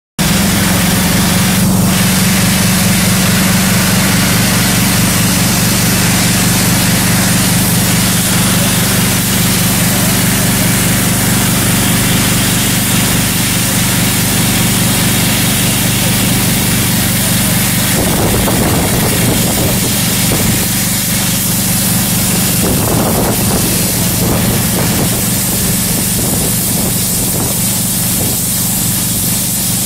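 PyroLance ultra-high-pressure water jet cutting through an 8 mm stainless steel plate: a loud, steady hiss of the spray over the even drone of the high-pressure pump's engine. About 18 seconds in the drone breaks up and the sound turns rougher.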